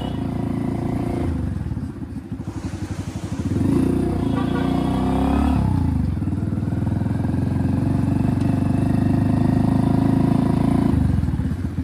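A modified Hero Splendor's single-cylinder four-stroke engine is running through an aftermarket RX silencer, loud, as the bike is ridden. The exhaust note drops off about two seconds in, picks up again a second or so later, and holds steady until it eases near the end.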